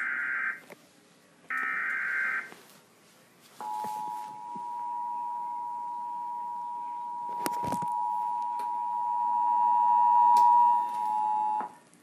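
Emergency Alert System broadcast of a flash flood warning: the end of one SAME digital header burst and one full burst, each a short screechy warble of tones. From about three and a half seconds in comes the EAS attention signal, a steady two-tone 853 and 960 Hz alert tone lasting about eight seconds and stopping just before the end, with a sharp click partway through.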